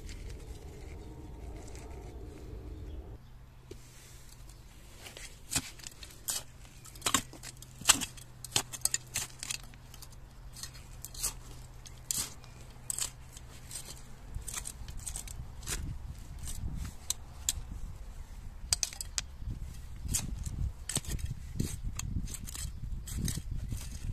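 Small metal hand fork digging into and turning over stony garden soil: irregular scrapes and sharp clicks as the tines catch grit and small stones, starting about five seconds in and continuing.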